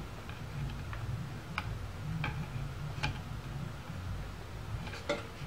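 Handling of a hose clamp on a motorcycle radiator hose: about six small, sharp clicks at irregular intervals as fingers work the clamp, with a low steady hum underneath.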